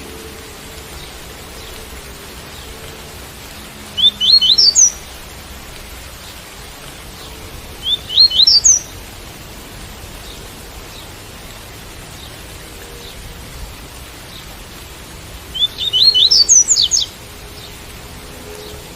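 Double-collared seedeater (coleiro tui-tui) singing its tui-tui song: three short bursts of quick upward-sliding notes, the last the longest, over a steady hiss of rain.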